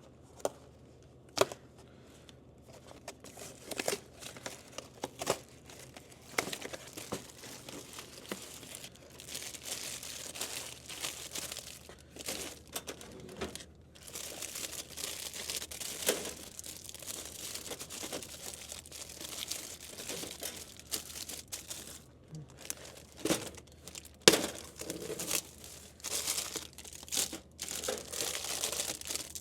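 Plastic-wrapped snack packages crinkling and rustling as they are handled and loaded into a vending machine, with scattered sharp clicks and knocks, the loudest about a second and a half in and near 24 seconds.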